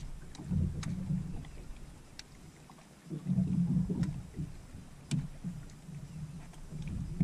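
Bow-mounted electric trolling motor humming in spurts as it is worked on and off. It drops away for a moment about two to three seconds in, and a few light clicks come over it.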